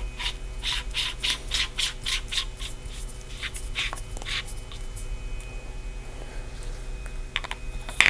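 Quick little scraping ticks, about three a second, as the head of a metal flashlight is twisted onto its body by hand; they thin out after about four seconds. A steady electrical hum runs underneath.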